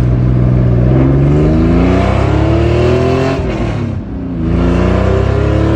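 Porsche 911 Speedster's twin-plug 3.6-litre air-cooled flat-six accelerating: the revs climb, fall at a gear change about four seconds in, then climb again.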